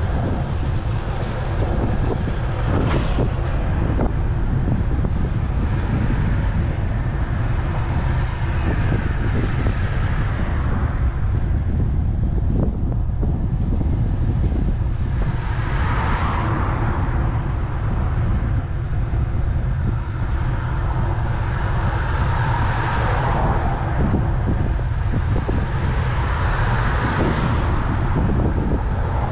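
Steady wind and road rumble on a handlebar-mounted camera's microphone while riding a road bike, with cars passing now and then: one swells past about halfway through and two more near the end. A few short high beeps at the very start.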